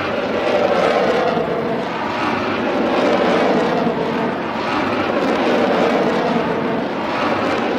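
Sound-effect roar: a steady rushing noise that swells and eases slowly, with no sharp attacks.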